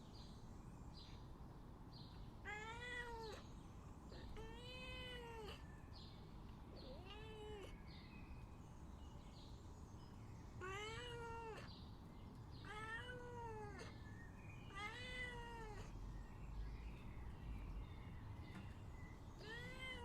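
Domestic cat meowing to beg. About seven drawn-out meows come every two seconds or so, each rising and then falling in pitch, with a pause of a few seconds before the last one.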